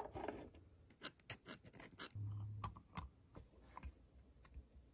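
Small steel and brass carburetor parts handled by hand: a series of faint, scattered clicks, taps and scrapes as a freshly drilled throttle arm is slid onto the brass throttle shaft of an SU carburetor.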